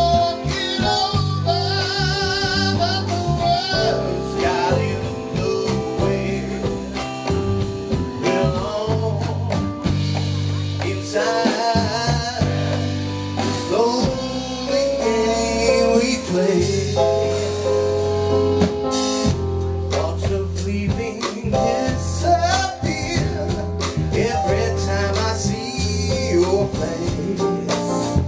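Live band playing a song: electric guitars and bass guitar over congas and keyboard, with sustained wavering lead notes.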